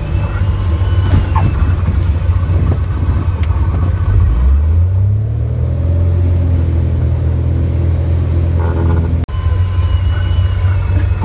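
Cessna Hawk XP's six-cylinder Continental engine and propeller heard from inside the cabin, running at low power as the plane rolls along the runway. About four seconds in the engine note rises and then holds steady; near the end the sound breaks off abruptly for an instant.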